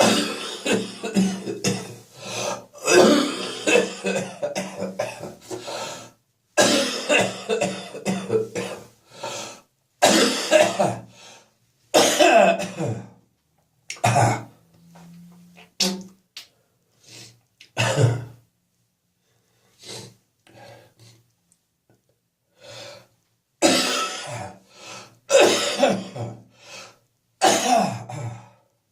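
A person's wet, phlegmy cough in repeated bouts mixed with throat clearing, with short pauses between bouts and a longer lull about two-thirds of the way through.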